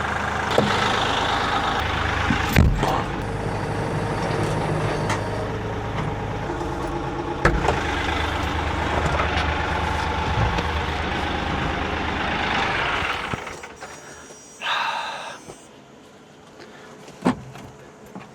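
Kioti 3520 tractor's diesel engine running, then cutting out about thirteen seconds in, shut off by the tractor's automatic safety engine cut-off. A few sharp knocks are heard along the way, and a short buzz comes soon after the engine stops.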